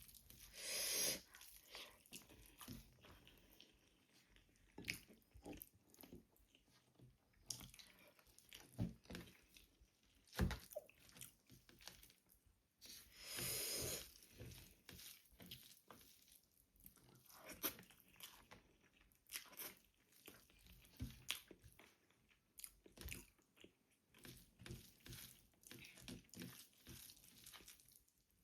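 A person eating close to the microphone: soft chewing with irregular crunchy bites, and two longer crunches, one about a second in and one around the middle.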